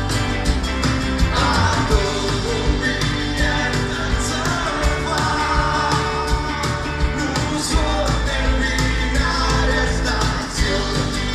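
A live band playing a song: electric and acoustic guitars, bass and drums with a sung melody, steady and loud, heard from among the audience in a large hall.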